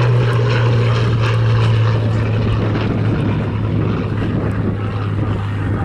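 Spitfire Mk Vb's Rolls-Royce Merlin V12 engine droning steadily as the fighter flies past in a display, its pitch sinking slightly as it draws away.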